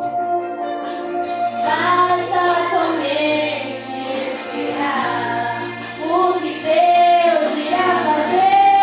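A youth worship group singing a gospel song with instrumental backing, the voices holding long notes that bend up and down over a steady low accompaniment note.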